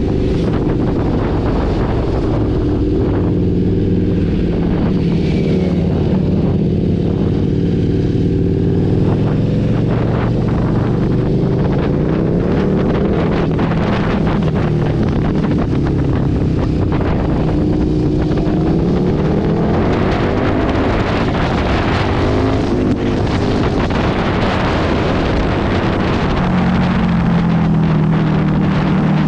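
KTM 1290 Super Duke's V-twin engine, on a titanium Akrapovič full exhaust, revving up and down as the bike accelerates and backs off through a run of bends. Wind rushes over the microphone.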